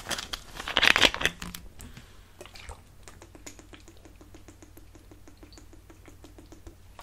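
Brief clatter of handling about a second in, then liquid glugging out of a bottle in a fast, even run of about nine glugs a second.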